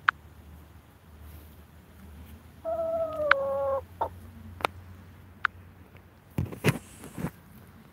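A chicken gives one drawn-out call lasting about a second, sagging slightly in pitch, a few seconds in. Scattered sharp clicks and a short burst of scratchy noise near the end.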